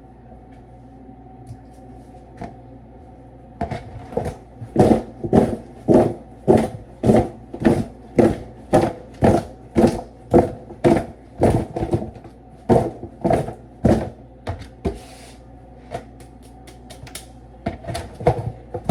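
Seasoned chicken thighs being shaken in a container to coat them: a regular run of thumps, about one and a half a second, starting about four seconds in, pausing briefly and starting again near the end, over a steady low hum.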